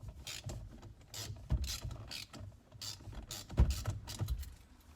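Hand socket ratchet clicking in uneven runs as an airbag retaining screw is turned out by hand, with a couple of louder knocks about one and a half and three and a half seconds in.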